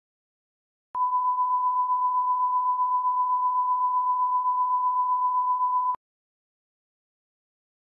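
A steady 1 kHz line-up test tone, the reference tone that goes with colour bars. It starts about a second in and cuts off suddenly about five seconds later.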